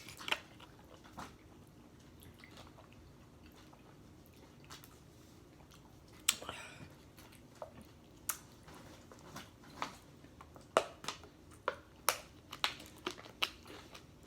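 Tortilla chips crunching as they are bitten and chewed: a few crunches at the start, a quieter stretch, then a quick run of sharp crunches through the second half.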